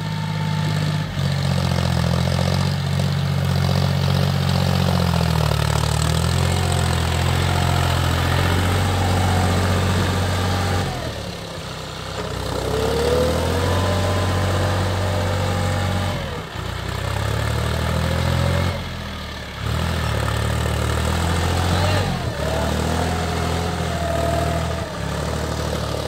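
John Deere 5045 D tractor's three-cylinder diesel engine running under load while pulling a cultivator through wet, muddy soil. Its pitch rises and falls a few times, and the sound breaks off briefly several times.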